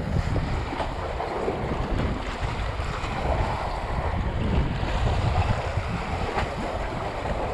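Wind buffeting the microphone over the steady wash of sea waves against a rock jetty.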